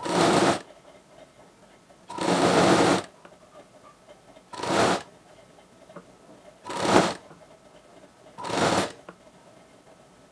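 Plain domestic straight-stitch sewing machine running in five short bursts of about half a second to a second each, roughly two seconds apart, with pauses between as the cloth is repositioned. It is sewing down a narrow double-folded hem on a saree edge in place of an overlock seam.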